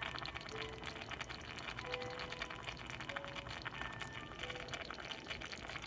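Pan of diced potatoes, onions and dried mint cooking in oil and water, with a dense crackle of sizzling and bubbling. A few soft, sparse music notes sound faintly over it.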